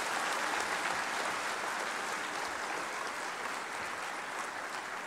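An audience of many people applauding together, a steady sound of many hands clapping that eases off slightly toward the end.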